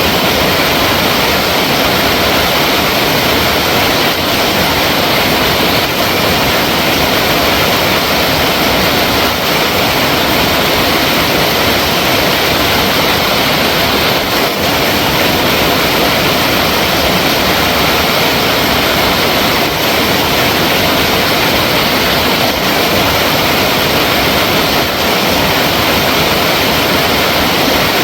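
Flowing water, a loud, steady, even rush with no breaks or changes.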